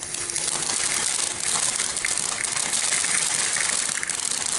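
Small F1 firework fountain burning: a loud, steady hiss of spraying sparks with fine crackling all through it, coming on suddenly at the start.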